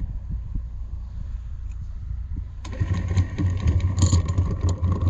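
A boat's engine runs with a steady low hum. About two and a half seconds in, a louder machine sound starts over it, a whine with rapid rattling clicks, typical of the anchor windlass hauling in chain.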